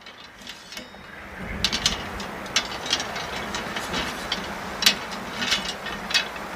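Wind buffeting the microphone as a low rumble, with irregular light clicks and rattles starting about one and a half seconds in.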